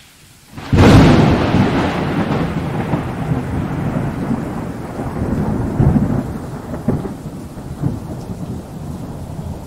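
A thunderclap sound effect: a sudden loud crack about a second in, then a long rolling rumble that slowly dies away, swelling again a few times.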